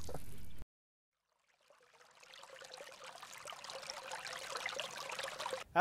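Water ambience at the surface after a fish's strike, cut off abruptly about half a second in. After a second of silence, a rushing, hiss-like noise fades in and slowly grows louder.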